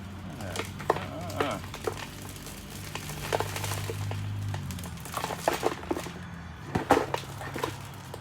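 Tools and brake parts clicking and knocking irregularly as a dirty old rear drum brake assembly is worked on, the loudest knock about seven seconds in, over a steady low hum.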